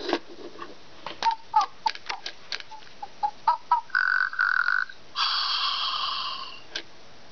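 Interactive electronic finger monkey toy making its monkey-voice sounds through its small speaker: a quick run of short chirps among light clicks, then a held tone twice, and a longer note near the end.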